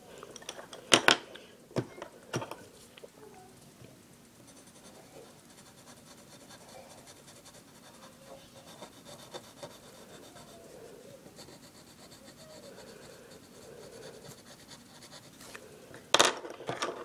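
Pencil scratching and rubbing on paper while shading a drawing, mostly faint, with a few sharper, louder strokes or knocks about a second in and a loud burst of them near the end.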